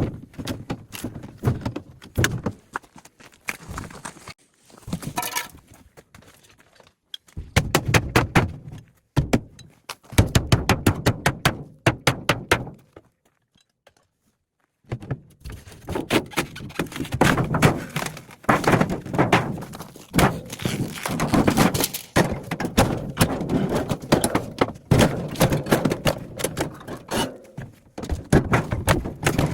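Knocks, thunks and clatter of a refrigerator being dismantled by hand. A quick, even run of clicks comes about ten seconds in, followed by a short pause before the clattering resumes.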